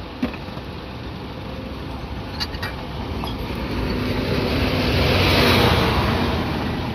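Intercity coach bus driving slowly past close by, its diesel engine and tyres growing louder as it nears, loudest about five and a half seconds in, then easing as it moves away.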